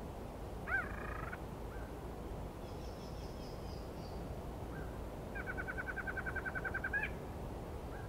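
Night-time jungle animal calls: a short arched call about a second in, a faint high trill around three seconds, then a rapid pulsed trill of about ten notes a second lasting nearly two seconds, over a steady low background rush.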